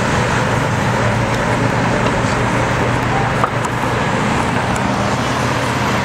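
Steady city street traffic noise, a continuous rumble and hiss of road traffic, with a brief click about halfway through.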